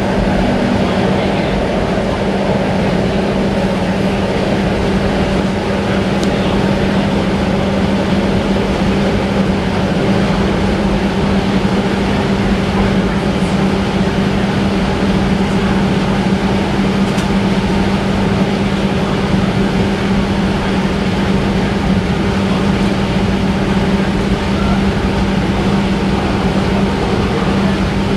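Steady interior noise of a Bombardier Flexity Outlook low-floor streetcar, heard from inside the passenger cabin: a constant low hum over an even rumble, unchanging throughout.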